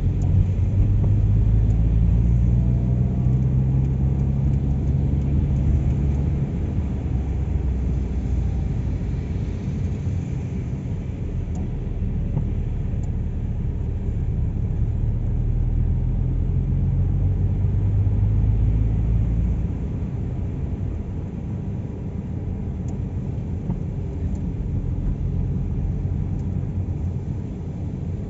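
A car being driven: a low engine and road rumble, with the engine note rising and falling twice as the car speeds up and then eases off.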